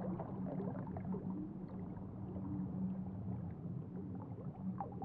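Underwater ambience: a steady low hum with bubbling and gurgling.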